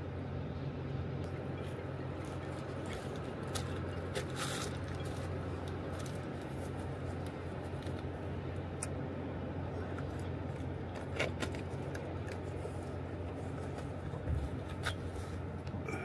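Steady low rumble and hiss of water running below a river dam, with a few light clicks and ticks scattered through.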